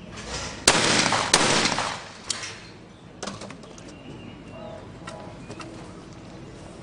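Two shotgun shots about two-thirds of a second apart, each with a reverberating tail, fired at clay targets in skeet.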